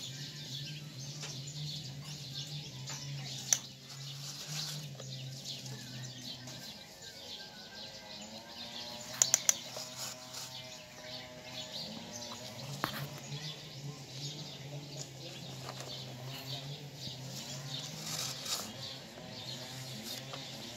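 Birds chirping over a low steady hum that drops away for a few seconds midway, with a few sharp clicks, three of them in quick succession about nine seconds in.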